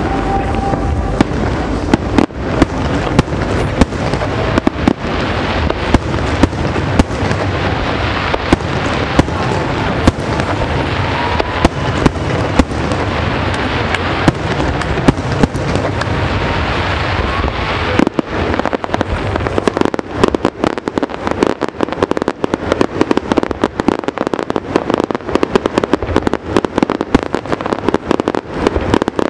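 Aerial fireworks display: a continuous barrage of shells booming and crackling, with sharp reports coming thick and fast, busiest in the second half.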